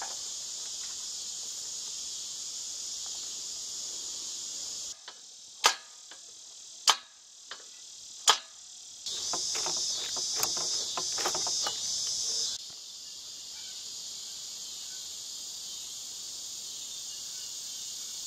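A steady insect chorus throughout. Three sharp knocks, about a second apart, come a few seconds in. A little later there is a run of lighter metal clinks as a pipe wrench works on a galvanized drop-pipe coupling.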